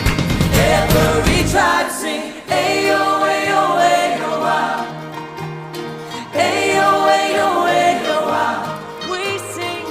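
Contemporary worship song: a group of voices singing over a band. About one and a half seconds in the drums and heavy bass drop away, and the voices carry on over lighter accompaniment.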